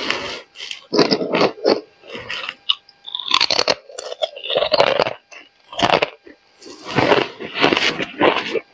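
Thin coloured ice discs being bitten and chewed in the mouth: a run of loud, irregular crunches, one after another with short gaps.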